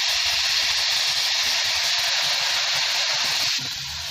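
Water hitting hot ghee and fried grated coconut in a kadhai, sizzling and hissing steadily as it flashes to steam; the hiss drops off sharply about three and a half seconds in.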